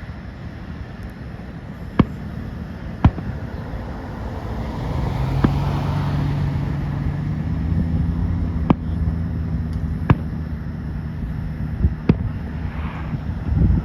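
Consumer fireworks going off nearby: about seven sharp bangs spaced a second or more apart. From about five seconds in, a steady low hum of a vehicle engine runs underneath.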